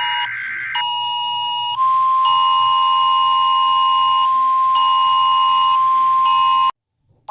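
Emergency Alert System alarm: a harsh chord of electronic tones pulsing on and off about every half second, then a long steady high tone with a second tone switching on and off beneath it, cutting off abruptly near the end.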